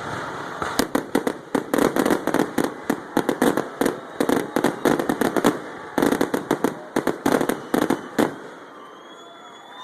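Aerial fireworks in a rapid barrage, a dense string of sharp bangs and crackles lasting about seven seconds. The bangs stop suddenly near the end, leaving only faint background noise.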